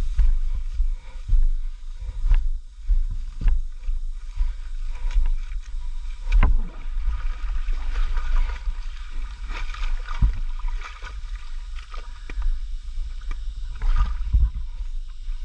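Muddy water sloshing and splashing around a fallen Suzuki DR650 SE as it is dragged and lifted upright, with irregular knocks and scrapes from the bike being handled. A constant low rumble lies under it.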